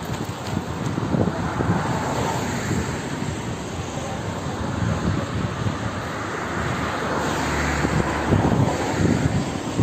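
Steady rumbling vehicle noise with some wind on the microphone, growing louder about three-quarters of the way in as a deep low hum joins it.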